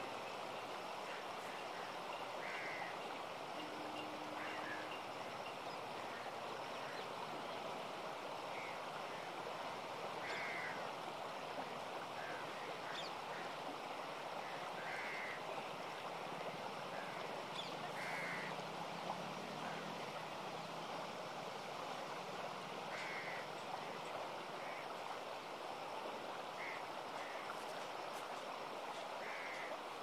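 Shallow river rushing steadily over rocks and stones. Short high calls come every few seconds above the water.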